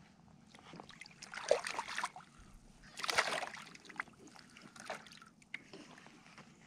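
A small fish splashing at the surface beside a kayak as it is reeled up and lifted out of the sea, two louder splashes about a second apart, then a few sharp clicks.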